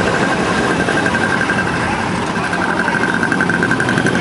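Several motorcycles running together at cruising speed, a steady engine and road noise, with a steady high-pitched pulsing tone over it.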